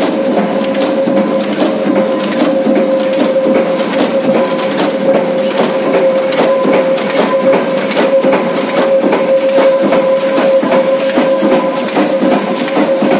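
Multi-station cold-forging nut former running, its dies striking the blanks in a rapid, even clatter of knocks over a steady whining tone.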